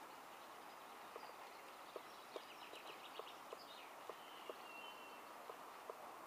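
Quiet outdoor ambience with birdsong: a rapid trill about halfway through and a thin whistled note a little later, over scattered faint ticks.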